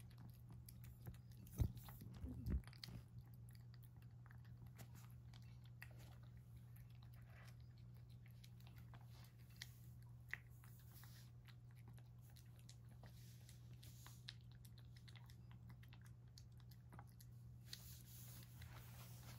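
A cat eating from a bowl: quiet, irregular chewing and lapping clicks, with a couple of louder knocks about two seconds in, over a steady low hum.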